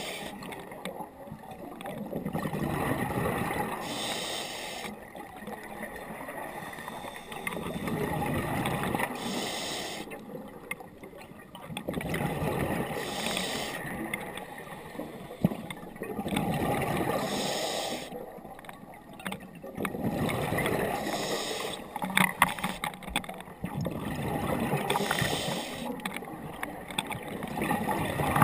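Scuba diver breathing through a regulator underwater: a short hiss on each inhale and a longer bubbling rumble on each exhale, repeating about every four seconds. A few sharp clicks near the end.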